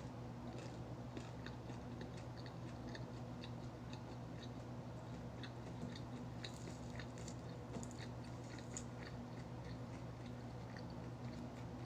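A person chewing and biting food close to the microphone, with many small crisp crackles, a few each second.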